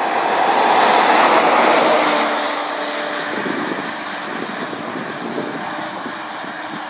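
MAN rigid lorry driving past on a wet road: tyre hiss and engine noise build to a peak about a second in, then fade as it pulls away, with the engine's hum clearer in the middle.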